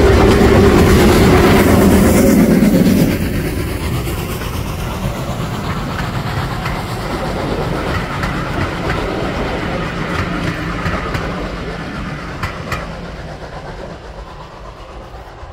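Steam locomotive passing close by with steam hissing out low at its wheels, loudest for about the first three seconds, then carriages rolling past with wheels clicking over the rail joints, fading as the train moves away.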